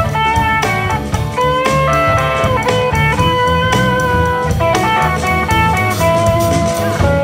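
Live blues-rock band playing an instrumental passage with no singing: electric guitars, bass and drum kit, under a lead line of held notes with slight bends.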